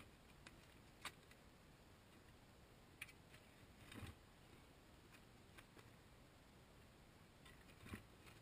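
Near silence, broken by a few faint ticks and dull thuds from a shovel blade working dirt and stones in a ditch; the two fullest thuds come about four seconds in and near the end.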